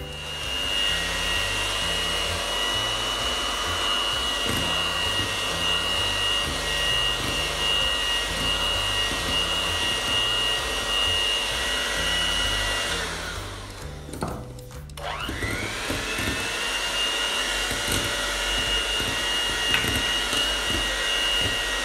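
Electric hand mixer running steadily with a high whine as its beaters whip cake batter. About thirteen seconds in it winds down and stops; a second or two later it starts again, its whine rising back up to speed.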